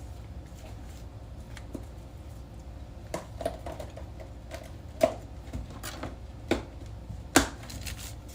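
Scattered light clicks and knocks of kitchen items being handled on a counter, with sharper knocks about five seconds in and near the end, over a low steady hum.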